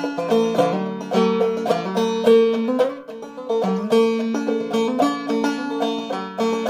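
Five-string banjo played clawhammer style: a steady, rhythmic run of picked notes and brushed strums.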